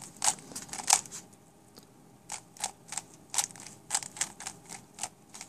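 3x3 speedcube being turned quickly by hand, its plastic layers clicking as they snap through each turn of an F2L sequence. A few clicks come first, then a short pause, then a quicker run of clicks.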